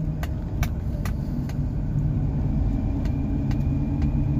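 Chevy 3500 pickup truck heard from inside the cab while driving in four-wheel drive on a snowy road: a steady low engine and road rumble. A few light clicks come in the first second and a half, with a couple more near the end.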